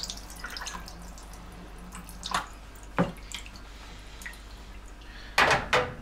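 Water dripping and trickling off a lifted dishwasher filter plate into the pool of undrained water left in the DishDrawer's tub, a few separate drips, then two loud knocks near the end.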